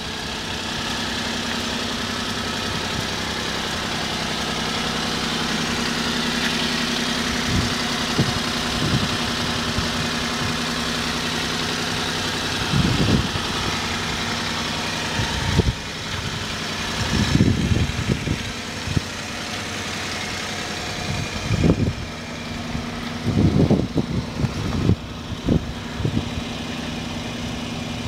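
Honda Acty truck's small three-cylinder engine idling steadily, with occasional short low thumps and rumbles over it.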